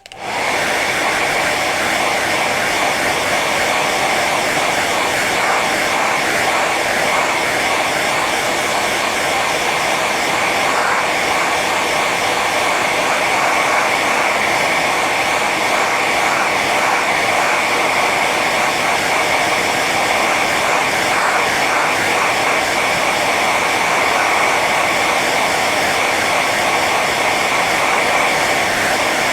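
Hair dryer running steadily on its high setting: a continuous rush of blown air and motor whine with a bright edge, unchanging.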